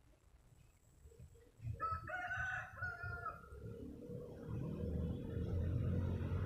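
A rooster crows once, about two seconds in, a single call of under two seconds. It is followed by a low, steady rumble with a faint hum that grows and is loudest near the end.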